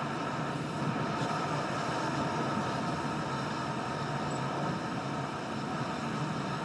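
Car driving, its tyre and engine noise heard from inside the cabin as a steady rushing sound.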